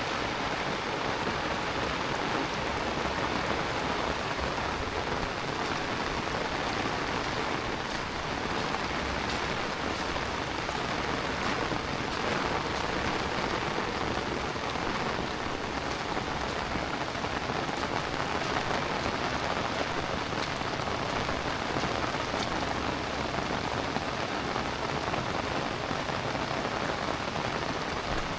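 Heavy rain falling steadily, a dense even wash of water hitting surfaces, with individual drops ticking through it.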